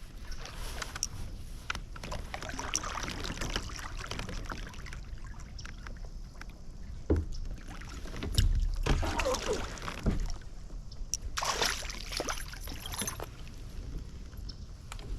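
Water splashing and knocks against a plastic fishing kayak as a spotted bass is brought in and landed, with louder splashes coming in uneven bursts in the second half.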